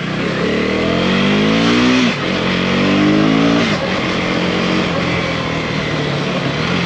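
KTM Duke 250's 249 cc single-cylinder engine accelerating through the gears. Its pitch rises for about two seconds and drops at an upshift, rises again and drops at a second shift nearly four seconds in, then holds steady.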